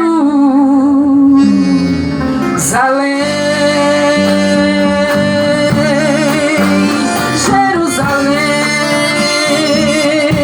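Gospel band music: a voice holds three long notes with vibrato, sliding up into each one, over guitar and bass.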